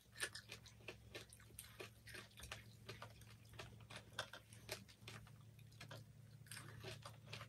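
Quiet chewing of people eating with their hands, with irregular small mouth clicks, over a low steady hum.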